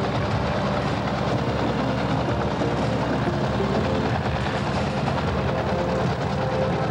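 Helicopter rotor chopping steadily.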